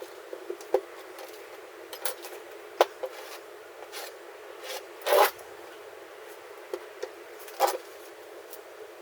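Scattered scrapes and light taps of a hand tool working packed casting sand, with a longer, louder scrape about five seconds in and another near the end, over a steady hiss.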